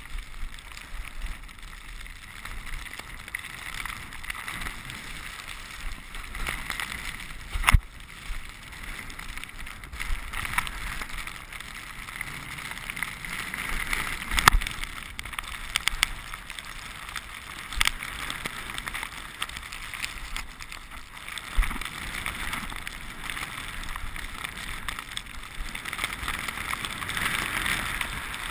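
Steady hiss of a snowboard riding through deep powder snow, with a few sharp knocks along the way, the loudest about a quarter and halfway through.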